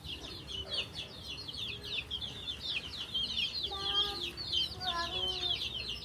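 Small birds chirping continuously in rapid, high, downward peeps, many overlapping, with a few short lower calls about four and five seconds in.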